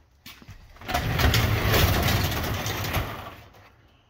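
A large door rolling open on its track: a rattling rumble that starts about a second in, lasts about two and a half seconds and dies away.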